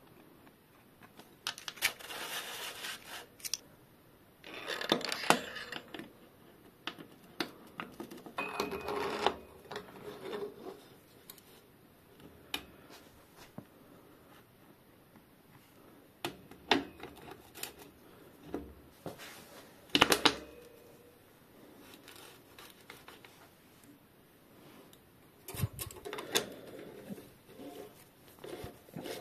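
Hand-tool handling sounds as a bicycle bottom bracket facing tool is oiled and fitted into the frame's bottom bracket shell: scattered metallic clicks and taps, with several short bursts of rubbing and scraping a few seconds apart.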